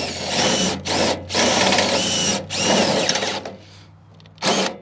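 DeWalt XR cordless drill drilling out a rivet. The motor runs in several short bursts with brief stops, goes quiet about three and a half seconds in, then gives one last short burst near the end.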